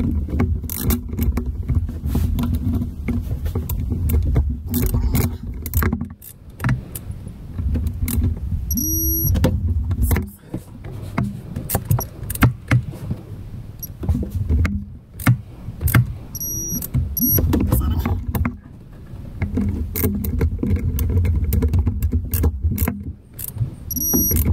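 Ratchet wrench clicking and metal tools clinking against engine parts as bolts are worked by hand. A steady low rumble runs underneath.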